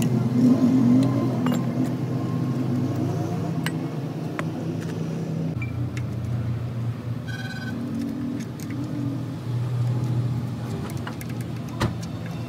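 A motor vehicle engine running steadily, with scattered light clicks and taps and a brief high tone about seven seconds in.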